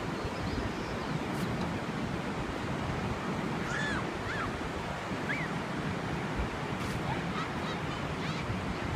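Steady wash of waves on a shore, with wind buffeting the microphone. A few faint, short, high cries come through a little before halfway.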